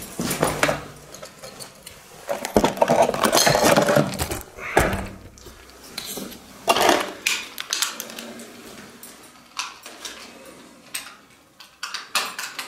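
Hard objects clattering and rattling in irregular bursts as someone rummages through gear searching for a lost cover. The loudest stretch is from about two and a half to five seconds in.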